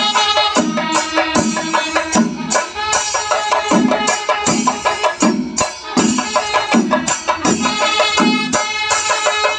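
Kerala temple ensemble: chenda drums beaten with sticks in a steady rhythm, with kombu (curved brass horns) sounding held notes over them.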